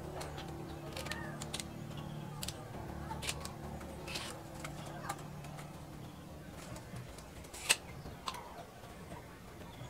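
Scattered light clicks and taps of wooden frame pieces being handled and marked, one sharper knock near the end, over a low steady hum that fades out after about six seconds.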